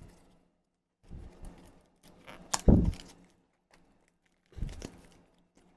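Cardboard retail box for a portable speaker being handled and opened by hand: short bouts of rustling and scraping, with a sharp knock about two and a half seconds in and another bump near the end.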